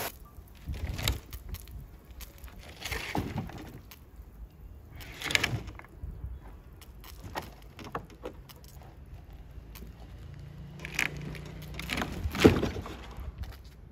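Irregular knocks and clatter: a handful of separate bangs a couple of seconds apart, the loudest near the end.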